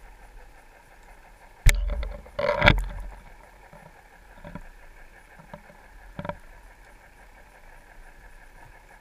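Goliath groupers bumping an underwater GoPro housing while trying to eat it: a sharp knock, a louder rattling bump about a second later, then two fainter knocks, over a steady underwater hum.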